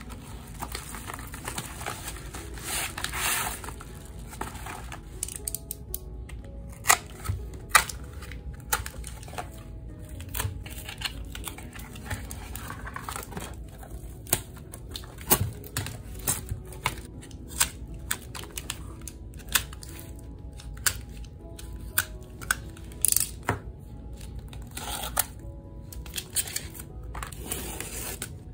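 Package opening: a padded paper mailer torn open, then paper crinkling and many sharp clicks and taps of hard plastic photocard toploaders being handled, over soft background music.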